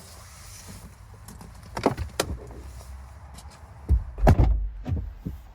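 Car engine idling with a low, steady rumble while doors are shut several times; the heaviest thud comes about four seconds in.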